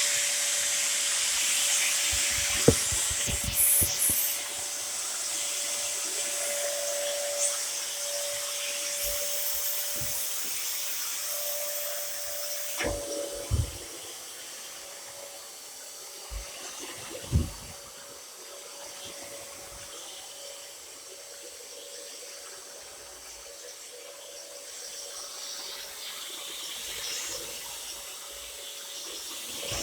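Water running steadily from a tap into a sink, with a few short knocks and clunks. The flow gets quieter about halfway through.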